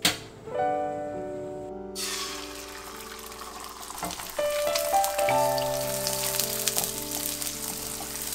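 Beaten eggs sizzling as they fry in hot oil in a nonstick frying pan; the sizzle starts about two seconds in and grows louder midway. Background music plays throughout.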